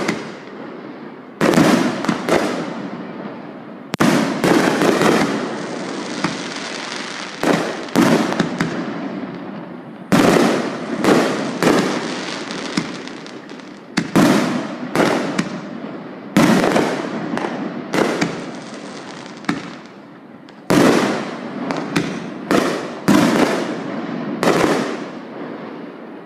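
Aerial firework shells bursting in quick, uneven succession: a series of sharp bangs, each trailing off into a fading echo.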